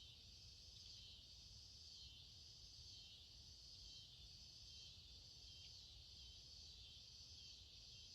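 Faint chorus of night insects, a high-pitched shrilling that swells and fades about once a second.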